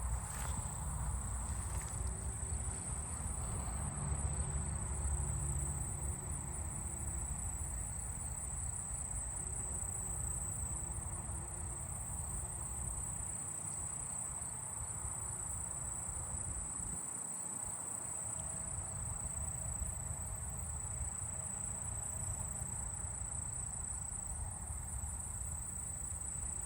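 Late-summer chorus of crickets and katydids: a steady, high-pitched trilling that never breaks, over a low rumble.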